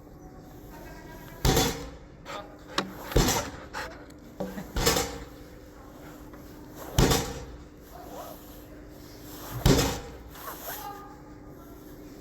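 Dog agility seesaw plank banging down onto its base, five loud bangs about two seconds apart, with a few lighter knocks in between.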